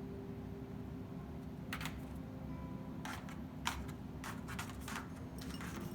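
Scattered sharp clicks and knocks, a cockatoo's beak working on a toy, starting a couple of seconds in and coming more often toward the end, over a steady low hum.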